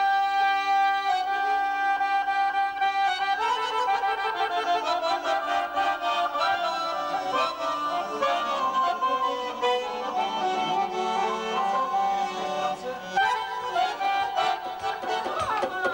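Azerbaijani garmon (diatonic button accordion) playing a traditional melody, holding sustained notes for the first few seconds and then moving into a quicker running tune.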